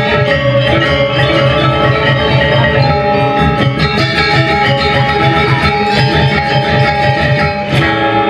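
Balinese gamelan gong kebyar playing fast, dense ringing metallophone patterns over a rapid even pulse. Near the end the pattern breaks off briefly and gives way to new sustained ringing notes.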